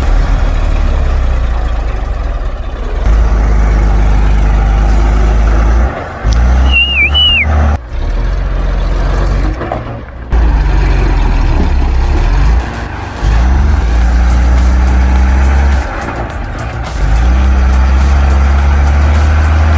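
A heavy logging truck's diesel engine labouring under load, its pitch rising and falling, mixed with background music with a heavy bass. A brief high squeal comes about seven seconds in.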